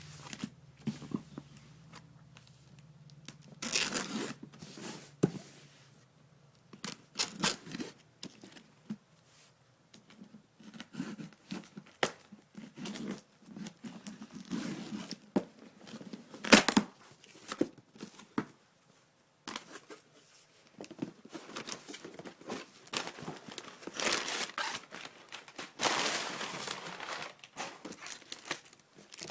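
A cardboard shipping box being opened by hand: tape tearing and packing material crinkling in irregular bursts, with sharp clicks and a few longer stretches of tearing.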